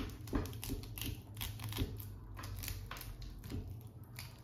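Knife cutting salmon flesh away from the backbone: a run of light, irregular clicks as the blade ticks over the fish's bones.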